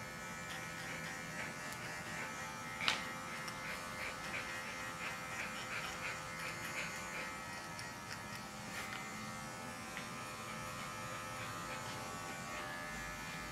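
Cordless dog clippers running with a steady electric buzz as they shear through a dog's coat, with one sharp click about three seconds in.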